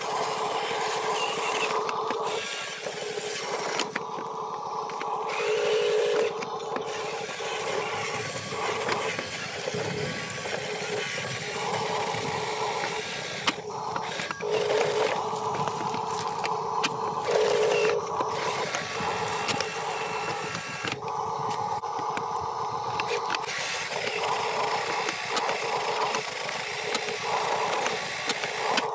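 Small electric motors and plastic gearboxes of RC construction toys whining in short spells, starting and stopping every second or two as they are driven.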